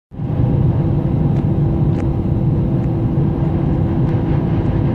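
Airbus A320 cabin noise as the airliner rolls along a wet runway: a steady low rumble of jet engines and wheels with a steady hum above it and a few faint ticks. It cuts in just after the start.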